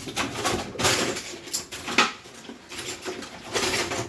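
Irregular clattering and scraping from equipment being handled, with a sharp knock about two seconds in.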